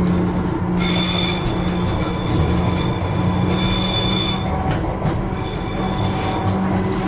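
Wheels of a Class 230 D-Train, a converted London Underground D Stock unit, squealing on the track, heard inside the carriage over the steady drone of its underfloor diesel engines. The high squeal comes in about a second in, stops past the middle, then returns more faintly.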